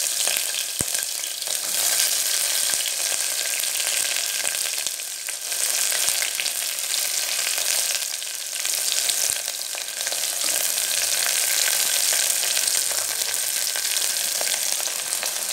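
Sliced shallots frying in hot sesame oil in an aluminium pressure cooker pan: a steady sizzling hiss with fine crackling and a few light clicks.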